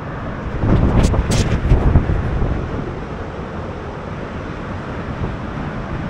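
Waterfall pouring at close range, a steady rush of falling water, with spray and wind buffeting the microphone, heaviest between about one and two seconds in. Two sharp knocks come about a second in.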